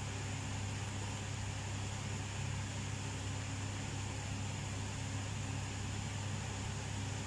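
A running fan: a steady low hum with an even hiss over it, unchanging throughout.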